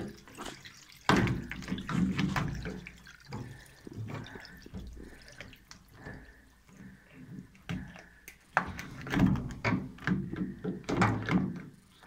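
Irregular knocks, clicks and scrapes of pliers and fingers against the plastic drain-pump filter housing of a washing machine, with water dripping and sloshing as the clogged pump opening is cleared.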